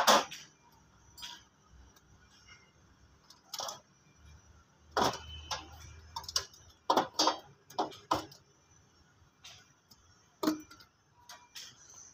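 Scattered metal clicks and knocks of hand tools and loose metal parts on a tractor's engine while its turbocharger is being taken off. There are about nine sharp knocks, the loudest at the very start and several close together between about five and eight seconds in.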